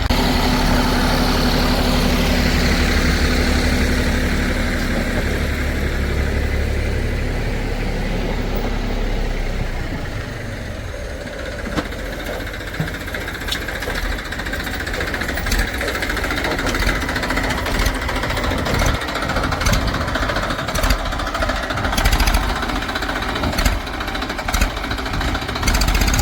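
Heavy machinery diesel engine running steadily, with a low even hum through the first third. After that the engine note sinks under frequent sharp clanks and knocks.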